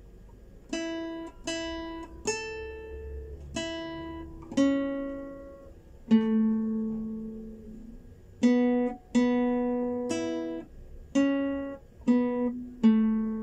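Classical guitar playing a slow melody one plucked note at a time, about a dozen single notes, each left to ring and fade before the next.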